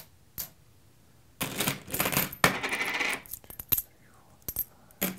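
Copper pennies clinking as they are set into a small tinfoil boat that already holds a pile of pennies. There is a dense run of clinks from about one and a half to three seconds in, then a few single clinks.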